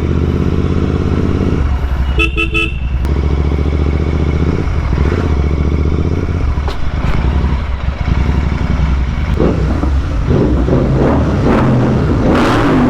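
Royal Enfield Continental GT 650's parallel-twin engine running through a Red Rooster aftermarket exhaust while the bike is ridden. A vehicle horn sounds in short beeps about two seconds in, and the engine sound grows rougher and noisier near the end.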